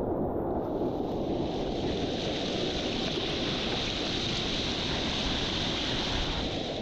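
Steady rushing noise of sea surf and wind, with wind rumbling on the microphone.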